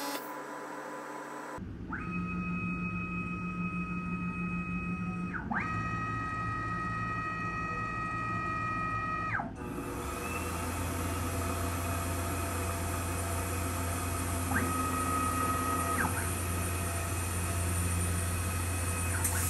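CNC milling machine at work on aluminium: an axis drive motor whines on a steady pitch during each move, gliding up as a move starts and down as it stops, in two long moves and one short one. From about halfway there is a steady hiss and low hum from the running spindle and mist-coolant air.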